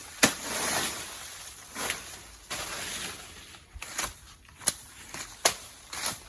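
A blade chopping at plantain stalks: half a dozen sharp, irregular strikes with rustling in between.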